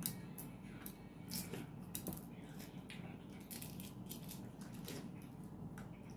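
Hard-boiled egg being peeled by hand: eggshell crackling and snapping in scattered small ticks and crackles, with a few louder clicks.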